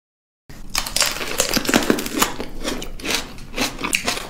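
Close-miked eating sounds: biting into and chewing juicy plums, a dense run of quick wet crunches, clicks and smacks that starts suddenly about half a second in.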